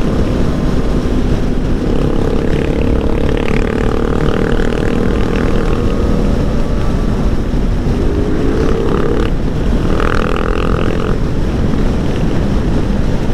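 Motorcycle engine running on the move under heavy wind rush. The engine note climbs twice as it accelerates, about two seconds in and again about eight seconds in.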